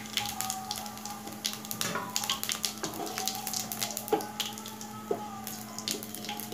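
Whole cumin seeds and whole spices sizzling in hot mustard oil in a kadai, with frequent small crackling pops: the tempering (phoron) frying. A wooden spatula stirs them through the oil.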